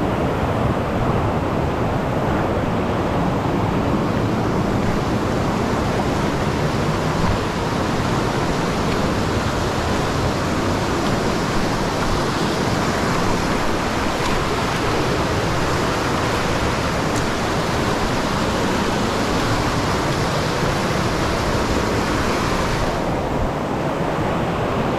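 River rapids rushing over rocks: a loud, steady roar of fast white water.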